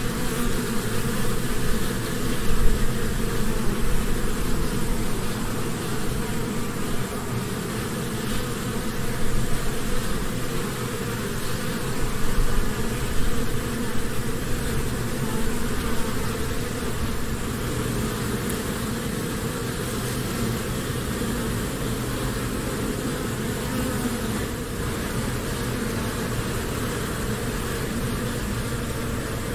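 Honeybees humming in a hive: a dense, continuous buzz of many bees at once, swelling slightly now and then.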